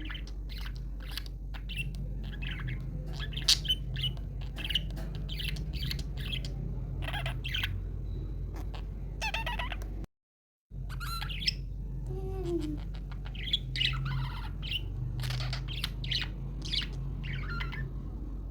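Budgies chirping and squawking in quick, busy chatter of many short calls. The sound cuts out completely for about half a second around ten seconds in.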